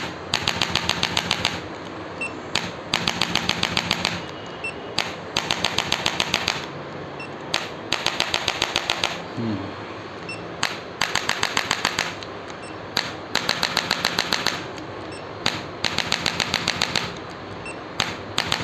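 Handheld chiropractic adjusting instrument firing rapid trains of clicking thrusts along the spine. The bursts last about a second, at roughly a dozen clicks a second, and repeat about seven times with short pauses. A single click falls between bursts.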